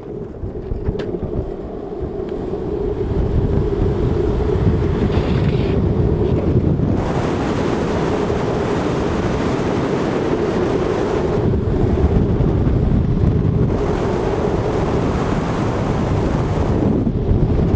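Wind rushing over the microphone and the roar of skateboard wheels on asphalt during a fast downhill run. It builds over the first few seconds as the board picks up speed, then holds steady, with two long stretches of louder hiss.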